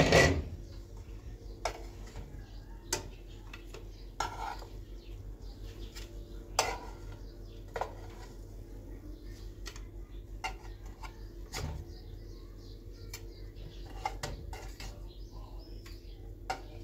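Cooking pots and utensils clattering: one loud ringing clank at the start, then scattered knocks and clinks every second or two.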